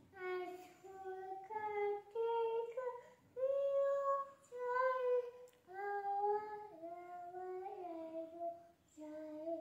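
A toddler singing a wordless sing-song lullaby, a string of held notes of about half a second to a second each with short breaks between them.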